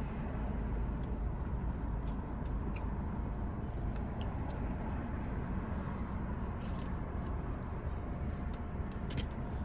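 Steady low hum of a car's engine idling, heard from inside the parked car's cabin, with a few faint clicks over it.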